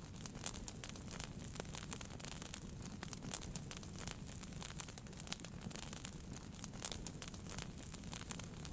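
Wood fire in a fireplace crackling, with many irregular sharp pops and snaps over a steady low rumble of the burning.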